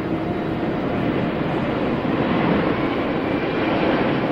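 Airbus A380 on final approach, its four jet engines making a steady rushing roar that grows a little louder as it passes low toward the runway.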